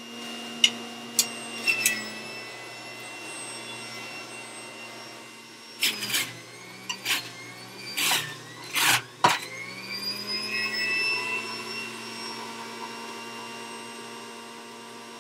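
Breville Juice Fountain centrifugal juicer running with a steady motor whine as dandelion greens are pushed down the feed chute. There are sharp knocks about a second in and again between six and nine seconds in, and the motor's pitch sags under the load and climbs back to speed.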